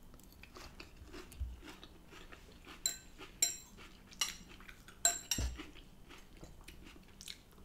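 Close-up chewing and crunching of crisp lettuce-and-rocket salad, with scattered clicks and light clinks of a metal fork; the sharpest sounds come about three and five seconds in.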